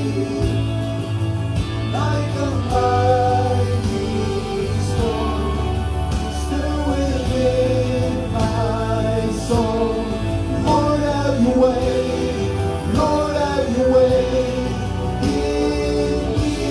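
Live worship music: a slow song with a sung voice held in long notes over a band with a steady low bass.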